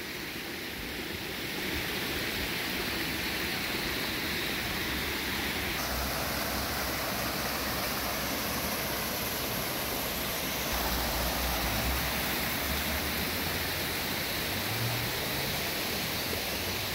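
Steady rush of water from a small cascade splashing onto rocks and running through a shallow rocky stream into a pool.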